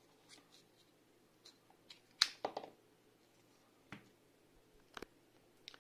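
Several faint, scattered clicks and taps as a power bank, USB cable and small lithium-polymer battery are handled on a silicone work mat. The loudest click comes about two seconds in.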